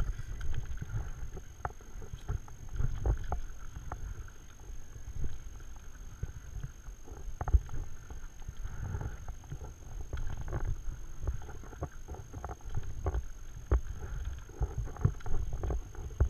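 Stand-up paddle strokes in calm water: the blade dipping, pulling and lifting out with small irregular splashes and drips, over a low rumble of wind on the microphone.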